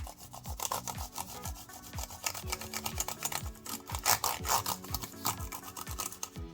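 A cloth rubbing and scrubbing quickly back and forth over the plastic keys of an Apple iMac keyboard, in many short strokes. Background music with a steady beat runs underneath.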